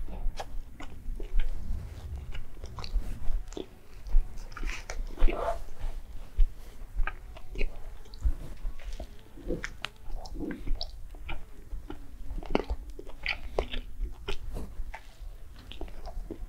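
Close-miked mouth sounds of a person biting and chewing a fried chicken nugget and a bacon burger: irregular short clicks and crunches of chewing throughout.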